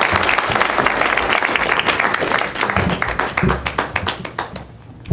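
Congregation applauding: dense clapping that thins to scattered claps and dies away near the end.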